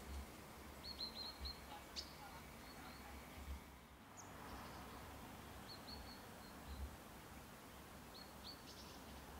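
Faint high bird chirps in short runs of three or four quick notes, heard a few times over a low rumble.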